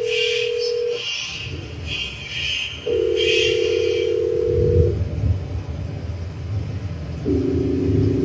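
Telephone-style tones sampled in a band's live intro: three long steady beeps about two seconds each, the later two sounding two pitches at once. Hissy pulses come about once a second over the first half, and a deep rumble swells underneath from about halfway through.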